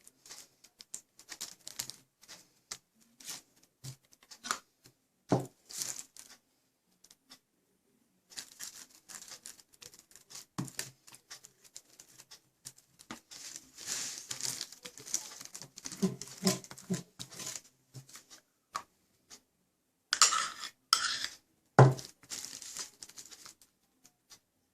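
Condensed milk being spread over a crisp wafer sheet lying on paper: irregular light scraping, crinkling and small clicks, with a few louder scrapes and a sharp knock near the end.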